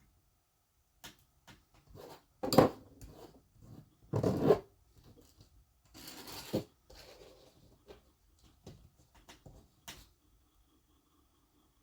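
Small clicks, knocks and rubbing from RC car differential parts being handled and taken apart by hand, with a sharp knock about two and a half seconds in and a short rattle a couple of seconds later.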